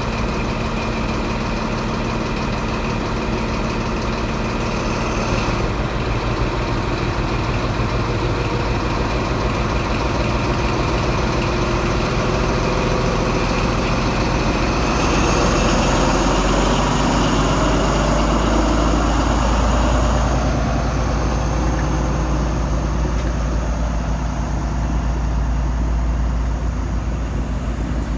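Class 43 HST power car's diesel engine running at the platform, then working harder as the train pulls away, loudest with a high whistle about fifteen to twenty seconds in. It eases off near the end as the coaches roll past.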